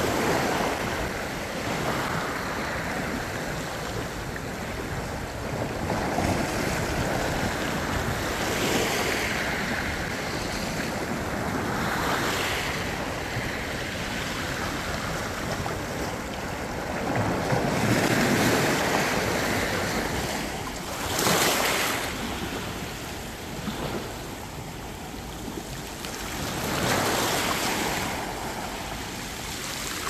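Small sea waves washing in over rocks and onto a pebble shore, the surf rising and falling every few seconds.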